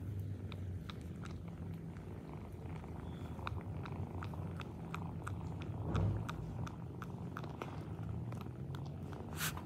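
Nursing cat purring steadily, with small wet smacking clicks, two or three a second, from a baby otter suckling at her teats. There is a soft bump about six seconds in.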